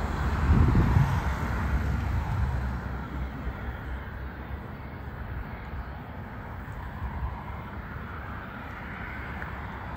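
Distant whine of a Cessna Citation Bravo business jet's twin turbofans as it taxis, under a low rumble of wind gusting on the microphone that is strongest about a second in.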